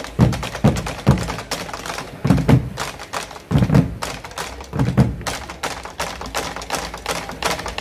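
Malambo drummers playing bombos legüeros, the wood-shelled Argentine drums with hide heads, with sticks. Rapid dry clicks of stick strokes run throughout, with deep thumps on the drumheads recurring about every second and a quarter.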